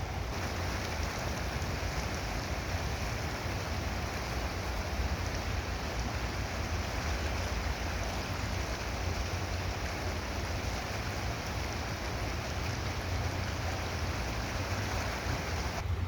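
Steady rushing of flowing river water, with a constant low rumble underneath.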